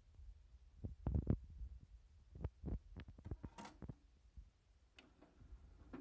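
Soft knocks and clicks from a CD and its plastic case being handled, about a dozen irregular taps, with a brief hiss about halfway through and a sharp click near the end.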